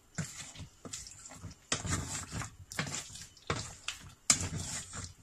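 Wooden spatula stirring thick beef bhuna in a stainless steel saucepan: about six irregular wet scraping strokes.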